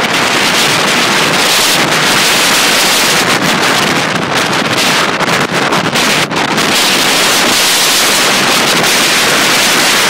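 Hurricane wind blasting the microphone in a loud, steady rush, over storm surf breaking against a rocky shore.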